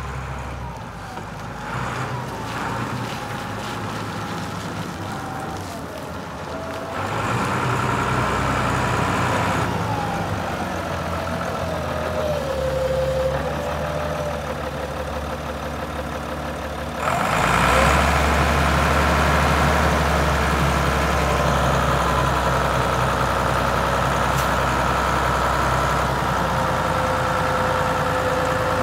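Svetruck 860 heavy forklift's diesel engine running, getting louder in steps about seven seconds in and again a little past halfway, with a whine that glides up and down in pitch.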